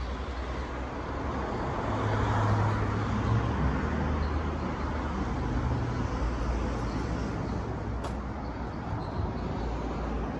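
Road traffic rumbling, swelling as a vehicle goes by about two to three seconds in.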